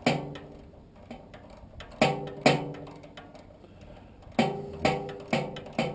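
Sharp metal-on-metal strikes, mostly in pairs about half a second apart, each followed by a short ringing tone from the sheet-metal furnace blower assembly. This is tool work while loosening the fastener that holds the blower wheel on the motor shaft.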